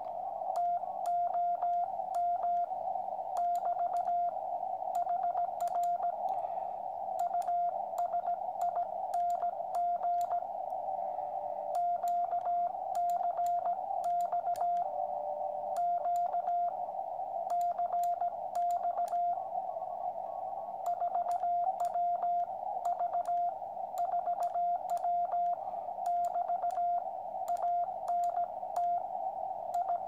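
Morse code sidetone from a QRP Labs QCX transceiver: a single tone of about 700 Hz keyed in dots and dashes from an iambic paddle, over hiss from the receiver's narrow CW filter. The message thanks the other station and describes the rig: QCX at 4 W into an end-fed antenna. Faint clicks run through it.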